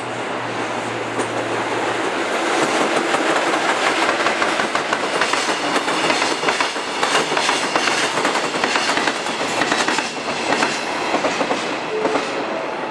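JR Freight EF66 electric locomotive passing with a steady hum over the first two seconds, followed by its container freight wagons rolling by, wheels clickety-clacking over the rail joints. The sound eases near the end as the train clears.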